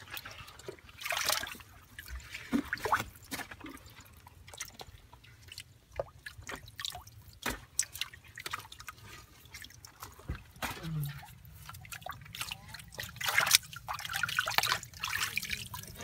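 Water splashing and dripping in irregular bursts as a hand sloshes and scoops in a shallow pit of muddy water.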